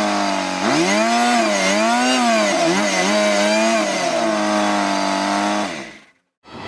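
Large two-man chainsaw running and cutting through wood, its engine pitch dipping and rising as the load changes, then cutting off suddenly near the end.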